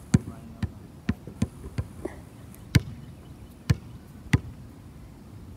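A series of about nine sharp knocks or thumps at uneven spacing, several of them loud, which stop a little over halfway through.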